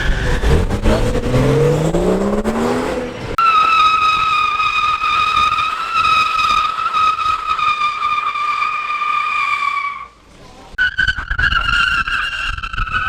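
A car engine revs up, then its tyres squeal in a long, steady burnout screech of about six seconds. After a short break, a second tyre squeal starts near the end.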